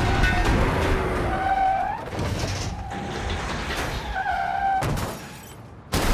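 Car crash sound effects from a freeway pileup: crunching metal and breaking glass, with a sharp impact about five seconds in and a sudden loud burst at the very end.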